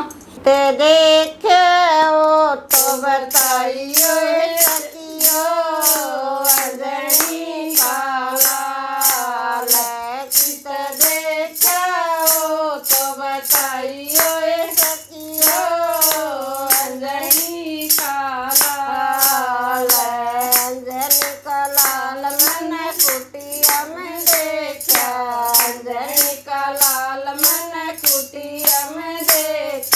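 Women singing a Haryanvi devotional folk song to Hanuman, with a hand-held plastic jingle clapper and hand claps keeping a steady beat about twice a second. The beat comes in about two seconds in, under the singing.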